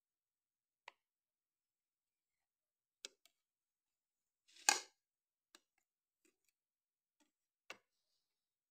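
A kitchen knife clicking and scraping against a plate while cutting a slice of marble cake: scattered faint clicks, the loudest a short scrape a little under five seconds in.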